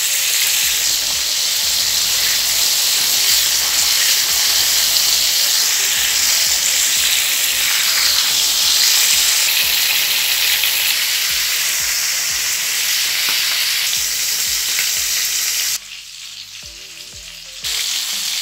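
Spice-coated fish pieces shallow-frying in hot oil in a frying pan: a steady, loud sizzle. Near the end the sizzle drops away for a couple of seconds, then comes back.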